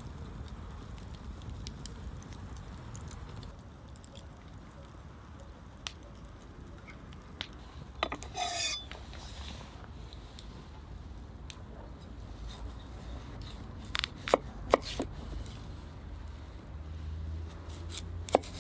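Wood fire crackling with small snaps over a low steady rumble, with a brief rustle about eight seconds in. Later come a few sharp knocks as a large knife slices through a peeled potato onto a wooden cutting board.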